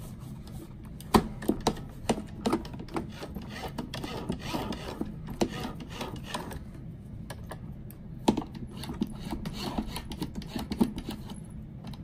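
Hands handling the plastic body and parts of a Roomba i7 robot vacuum: irregular light clicks and knocks over rubbing and scraping.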